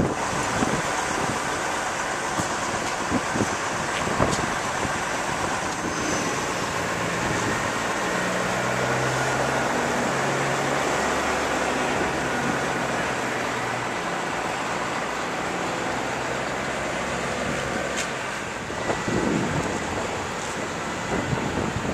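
Mobile crane's engine running steadily during a lift, under a constant wash of wind on the microphone. A low engine hum grows stronger in the middle and fades again.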